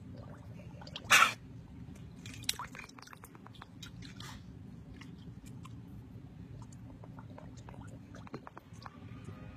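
A dog blowing bubbles in water: wet pops and clicks, with one short loud burst about a second in.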